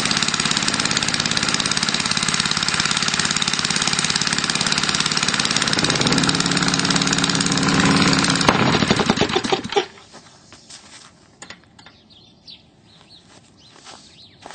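3 HP Tecumseh single-cylinder small engine converted to run on hydrogen gas, running steadily, then growing louder, giving one sharp bang about eight and a half seconds in, sputtering for a moment and stopping about ten seconds in. The bang fits the backfire that the owner puts down to an incorrect hydrogen mixture.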